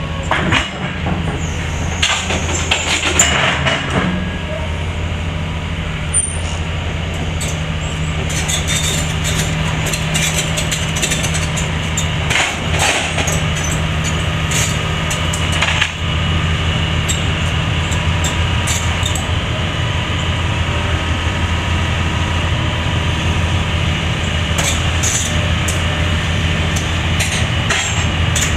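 Excavator's heavy diesel engine running steadily with a low drone while a bucket attachment is lifted, with scattered metallic knocks and clanks throughout.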